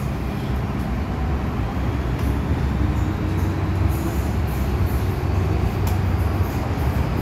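MTR M-Train electric multiple unit running in the tunnel, heard from inside the car: a steady low rumble of wheels on rails with noise spread over all pitches. A faint motor whine rises a few seconds in.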